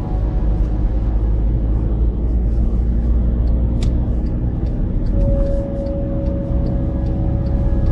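Steady low rumble of a car driving along a road, the engine and tyre noise heard from inside the cabin.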